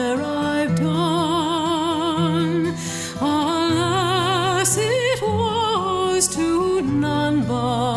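Background music: a slow song with a singing voice holding long notes with wide vibrato over sustained accompaniment.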